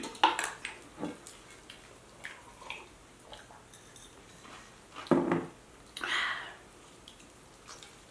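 Close-up eating sounds: a fork clicking and scraping on a plate of spicy instant ramen, with wet chewing, slurping and sipping noises. There are a few quick clicks in the first second, then two louder wet mouth sounds about five and six seconds in.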